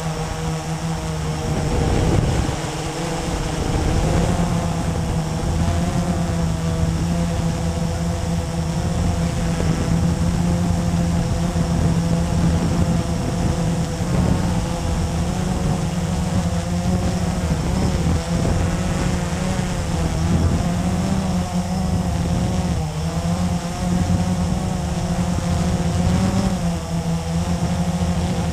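Blade 350QX quadcopter's four brushless electric motors and propellers, heard from the GoPro on board, buzzing steadily in flight, the pitch wavering slightly up and down.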